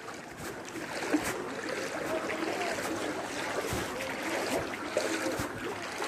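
Shallow floodwater sloshing and splashing, as when someone wades through it, with a few soft knocks along the way.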